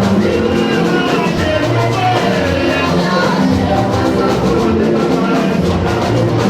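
Music with a steady drum beat and other instruments playing continuously.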